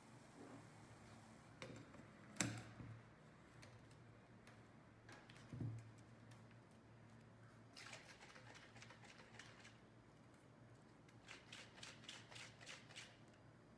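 Metal shaker bottle being handled: a sharp click and a dull knock as its lid is fitted, then the bottle is shaken hard with cola inside in two spells of quick, even strokes, the second near the end.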